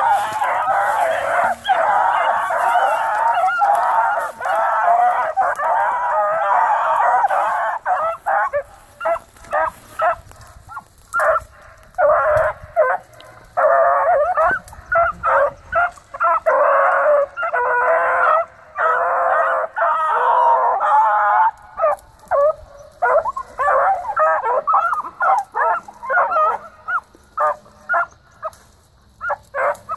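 Several young hounds baying together, their voices overlapping in a continuous chorus. About eight seconds in they break into shorter bouts and separate yelping barks, which carry on to the end.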